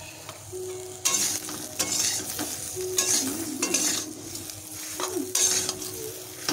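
A metal spatula scrapes and stirs mango pieces around a metal pan as they sizzle in hot oil. The scraping strokes start about a second in and come roughly once a second.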